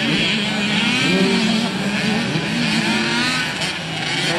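Several dirt bike engines racing together, their overlapping notes rising and falling in pitch as the riders open and close the throttle.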